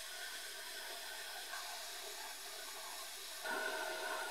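Abrasive blast gun in a sandblasting cabinet, hissing steadily as the blast strips rust from small steel vise parts. About three and a half seconds in it suddenly gets louder, with a steady ringing tone added, as the blast moves onto a flat steel bar.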